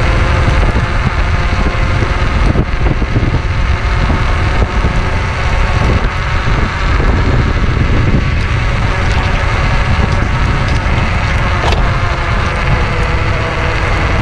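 An electric scooter riding along over paving: steady wind buffeting on the microphone and a constant rumble of tyre and road noise.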